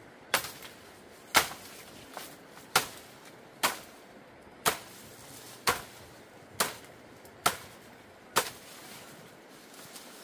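A tool striking something hard, nine sharp blows about a second apart, each with a short ringing tail.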